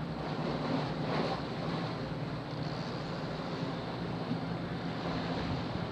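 Wind buffeting the microphone and water lapping at the dock, over a low steady hum.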